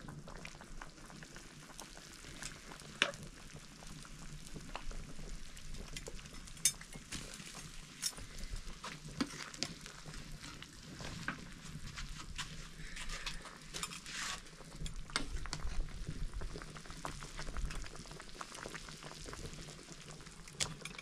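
Pork boiling in an aluminium pot over a wood fire, the water bubbling steadily, with scattered clinks and scrapes of a metal ladle against the pot as pieces are lifted out.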